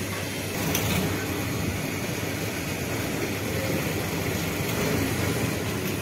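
Petrol station fuel dispenser running steadily as petrol is pumped through the nozzle into a motorcycle's tank, with a constant low hum.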